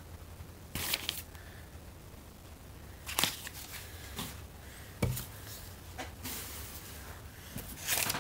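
Brown paper shipping mailer crinkling and tearing as it is pulled open along its tear strip, in several short bursts of rustling and ripping.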